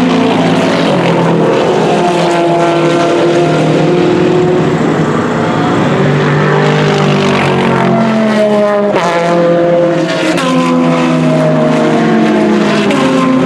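Several GT race cars' engines running hard as they pass and accelerate, overlapping, their pitch climbing and dropping back again and again with the gear changes. A sharp crack comes about nine seconds in.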